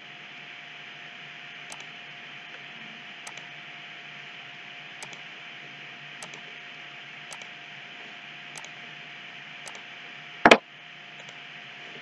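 Steady hiss with a faint steady hum, light ticks every second or so, and one sharp computer-mouse click about ten and a half seconds in.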